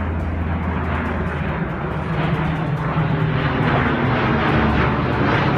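Aircraft engine noise, a steady dense rumble that grows gradually louder.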